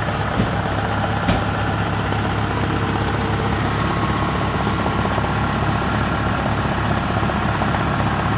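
Kubota DC70 combine harvester's diesel engine running steadily, with two short knocks in the first second and a half.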